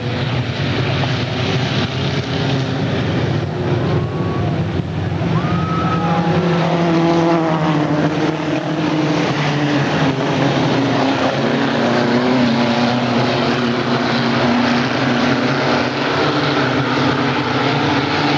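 Several Chevrolet Chevette race cars' four-cylinder engines running hard together. Their pitches rise and fall as the cars accelerate and lift off around the track.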